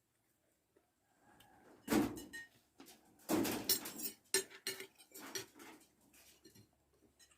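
Clattering, rustling handling noise close to the microphone: sharp clicks and knocks come in clusters about two and three and a half seconds in, then thin out to a few lighter knocks.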